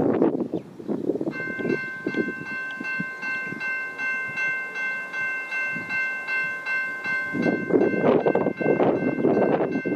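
General Signals Type 2 electronic level-crossing bell starting about a second in and ringing steadily, about three strokes a second, as the crossing activates for an approaching train. Gusts of wind buffet the microphone at the start and again, louder, over the last couple of seconds.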